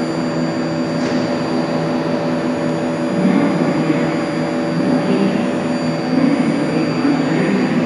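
BART Bombardier train standing at the platform with a steady electrical hum made of several tones and a faint high whine. A rougher low rumble comes and goes from about three seconds in.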